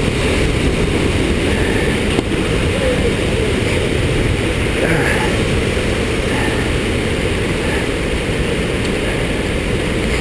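Waterfall's rushing water, a steady, even roar.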